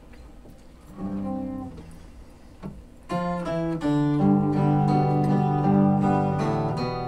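Acoustic guitar: one chord strummed and left to ring about a second in, then steady strummed playing begins about three seconds in and carries on.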